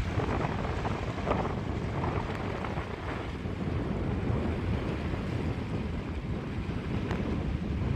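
Wind buffeting the microphone in a steady low rumble, over water rushing and splashing against the hull of a Schock 23 sailboat under sail in choppy water. The splashing is strongest in the first few seconds.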